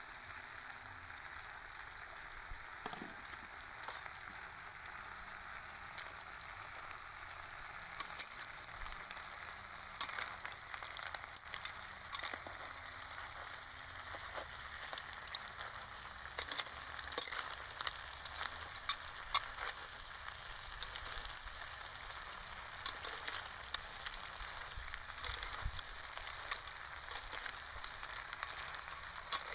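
Snails and greens sizzling as they stir-fry in a pan, with a steady hiss. From about a third of the way in, a metal spatula clicks and scrapes against the pan as they are turned.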